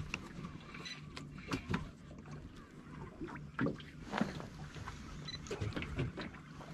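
Small boat on the water, with irregular knocks and splashes against the hull over a faint steady low hum.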